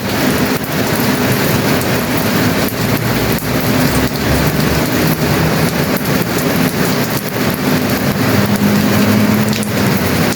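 Steady heavy rain falling on a surface, a dense even patter with many individual drops striking, and a low hum underneath.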